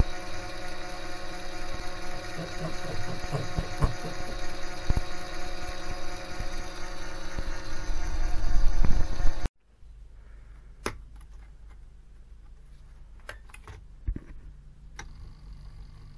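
Mini lathe running: a steady motor whine with rattling from the meshing change gears, getting louder just before it cuts off abruptly about two-thirds of the way through. After that, a quiet room with a few light clicks.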